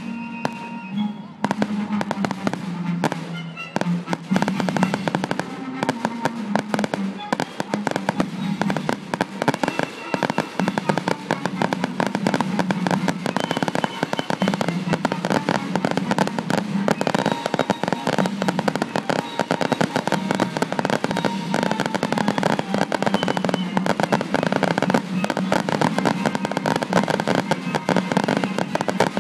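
Fireworks display: a rapid barrage of bangs and crackling reports, many per second, thickening into an unbroken run after about a second and a half.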